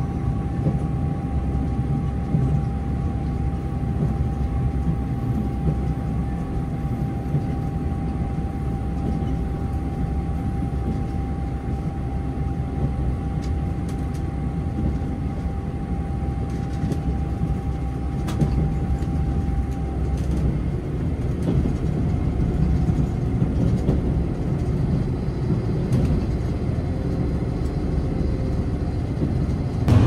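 Passenger train running, heard from inside the carriage: a steady low rumble of wheels on the track, with a thin steady whine that stops about two-thirds of the way through.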